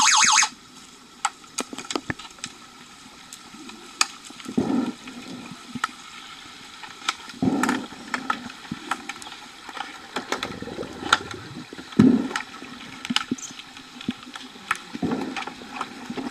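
Underwater sound of an underwater hockey game: many sharp clicks and knocks of sticks and puck striking each other and the pool bottom, with several low whooshing swells of water and bubbles as players swim close by. A pitched electronic signal tone cuts off about half a second in.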